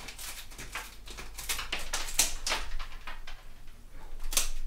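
Floristry scissors cutting through thick bouquet stems: a run of sharp snips and crunches, the loudest about two seconds in and near the end, as the really stubborn stems take several cuts.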